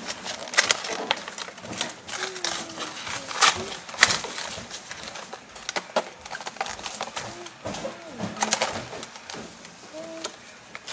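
Irregular clicks and rustling of toy packaging being handled, with a muffled voice now and then in the background.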